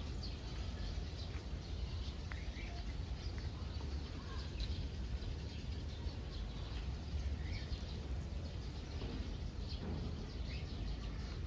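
Outdoor ambience at a bird enclosure: scattered short, high bird chirps over a steady low rumble.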